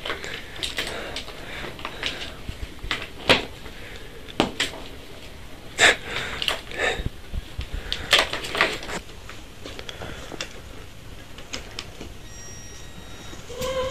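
Irregular light clicks and knocks from kittens batting at a plastic ball-track tower toy.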